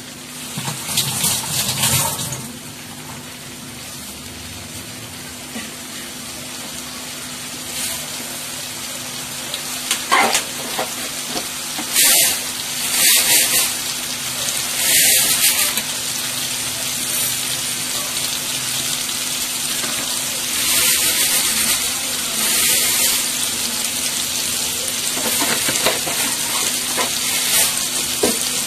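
Tomato and spice masala sizzling in mustard oil in an aluminium kadai, a steady frying hiss as the masala is fried down. Short louder bursts come now and then from stirring.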